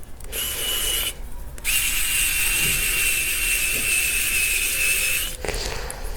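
Xiaomi Mijia cordless electric screwdriver's motor and gearbox whining in two runs: a short burst under a second long, then, after a brief pause, a steady run of about three and a half seconds.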